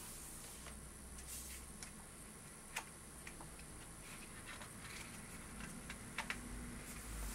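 Stiff pages of a hardcover photo book being turned by hand: a brief rustle, then a few sharp clicks as the thick card pages flex and settle, over a faint steady hiss.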